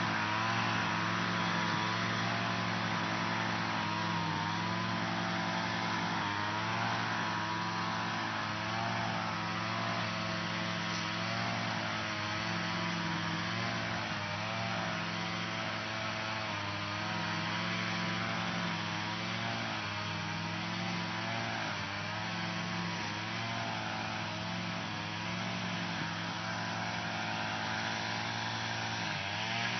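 Lawn mower running steadily, its pitch wavering slightly up and down every second or two as it cuts grass.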